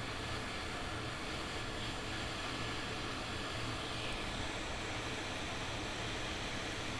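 Steady, even hiss with a faint low hum and a thin steady high tone, without any distinct clicks or events.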